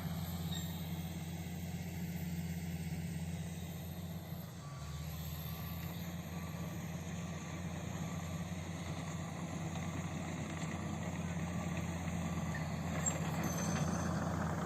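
Komatsu D85SS bulldozer's diesel engine running steadily under load, with a reverse alarm giving a regular series of short single-pitch beeps from about five seconds in until about two seconds before the end, as the dozer backs up.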